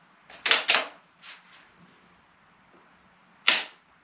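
Bolt-action precision rifle worked in dry fire: sharp metallic clacks of the bolt being cycled and the trigger snapping on an empty chamber. A close pair comes about half a second in, two faint clicks follow, and one more sharp clack comes near the end.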